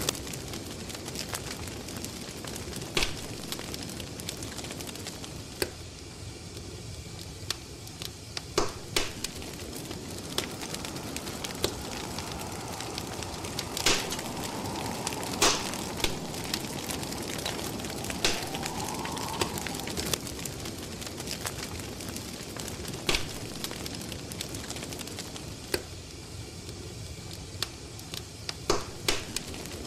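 Crackling fire: a steady hiss with irregular sharp pops and snaps, some in quick little clusters. A faint whistling tone comes in around the middle and rises slightly before fading.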